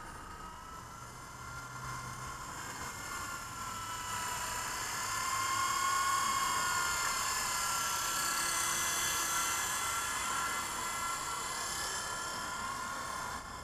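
WLtoys V912 RC helicopter's electric motor and rotor whining in flight, the pitch wavering up and down with throttle changes. It grows louder about five seconds in and fades somewhat near the end.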